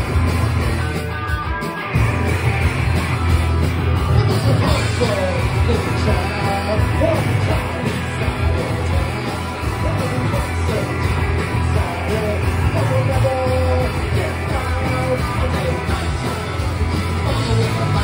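Punk rock band playing live: distorted electric guitars, bass and drums, with shouted vocals.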